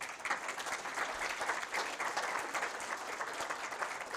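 An audience applauding. A dense patter of many hands clapping starts suddenly and holds steady.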